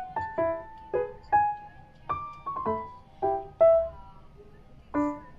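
Background piano music: single notes and chords struck about twice a second, each ringing and fading.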